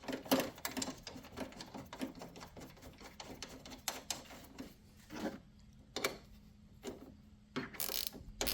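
Hand ratchet clicking in quick runs while the battery hold-down bolt is worked in, followed by a few separate metal clicks and knocks.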